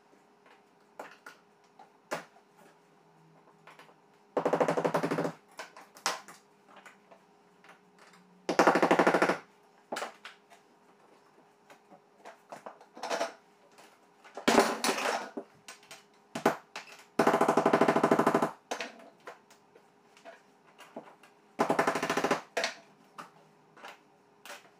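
A handheld power tool with a hammering action, used on a window frame, run in five short bursts of about a second each, with a fast, even, machine-gun-like rattle. Light clicks and knocks come between the bursts.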